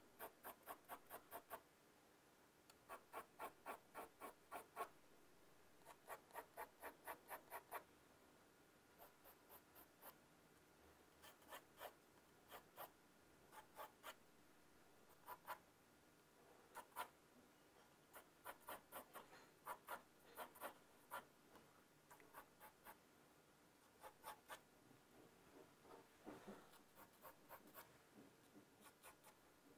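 Faint scratching of a pencil on drawing paper, in quick runs of short back-and-forth strokes, about five a second, with brief pauses between runs. The lines are being gone over again and again to darken them.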